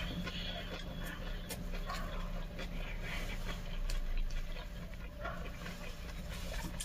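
A person chewing food, with many small wet mouth clicks and smacks, over a steady low hum.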